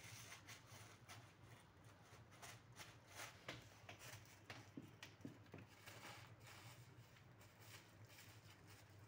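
Faint, irregular crinkling and rustling of a plastic bag as a kitten paws at it, busiest in the middle.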